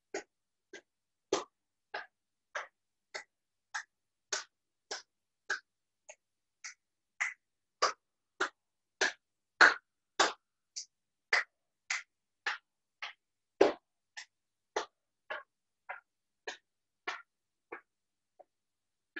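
A hand tapping rhythmically on the arm and upper body in qigong self-tapping along the channels, a little under two taps a second. Some taps land harder than others, and the last few are lighter.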